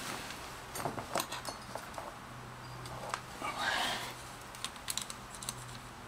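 Light metallic clicks and clinks from a motorcycle clutch basket and plates being handled by a gloved hand, with a short scraping rustle in the middle.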